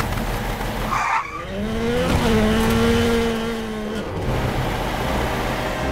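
Dubbed-in engine sound effect for a toy monster truck driving off. A low rumble gives way to an engine note that rises, holds steady and drops away about four seconds in, with a brief high squeal about a second in.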